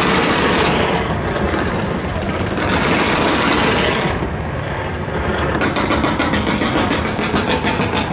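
Fireworks: a dense, continuous rushing roar of launches and bursts. About six seconds in it turns into rapid crackling pops.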